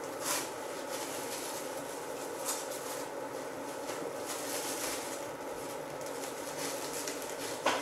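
Plastic cling film crinkling and rustling a few times as hands press crumbly shortcrust dough through it and gather the film around it, over a faint steady hiss.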